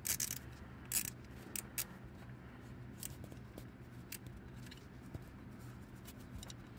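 Scattered light clicks and taps of hands working small metal and plastic parts at the crankshaft position sensor mounting under the engine, over a faint steady low hum.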